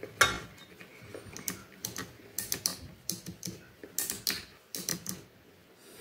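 Sharp plastic clicks and rattles from a fan heater's switch block being handled and pressed into its plastic housing, coming in quick clusters with the loudest click just after the start.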